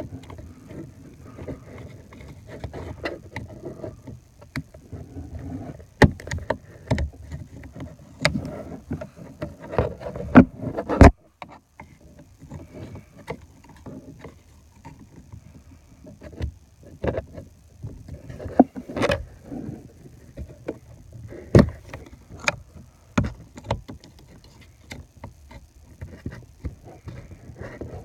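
Irregular clicks, taps and knocks of a screwdriver poking at the plastic trim behind a steering wheel, feeling for the airbag's retaining clips, with rustling handling noise. The sharpest knocks fall around a third of the way in and again past the middle.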